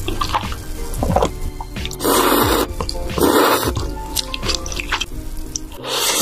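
Slurping of creamy pasta noodles from a spoon, in loud half-second bursts about two and three seconds in and again near the end, with small wet clicks of chewing between. Background music with held tones runs underneath.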